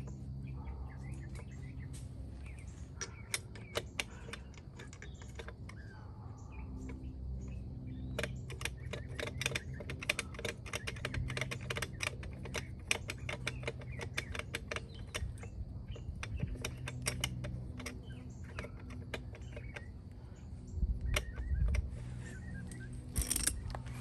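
Metal lug nuts being spun onto a trailer wheel's studs by hand, making a long run of light, rapid clicks. Near the end there is a brief louder scuffing.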